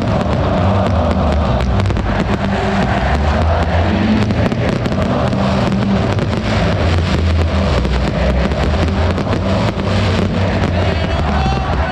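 Aerial fireworks crackling and popping in quick succession over the steady din of a packed football stadium crowd singing and cheering.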